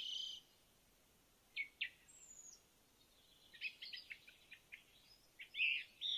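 Birds chirping and calling in short, scattered high calls, with a quick run of chirps in the middle and one high falling whistle.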